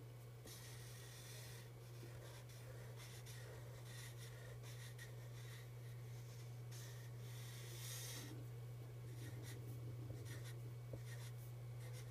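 Black Sharpie permanent marker drawn across paper in short, irregular strokes, inking over pencil lines, with a steady low hum underneath.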